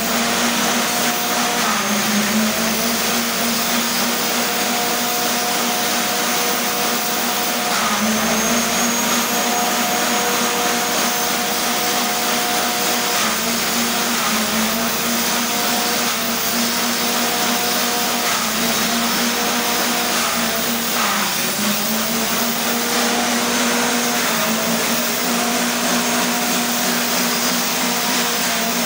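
Small engine-driven forage chopper running at high speed with a steady whine, its pitch dipping briefly every several seconds and recovering as bundles of green stalks are fed in and chopped.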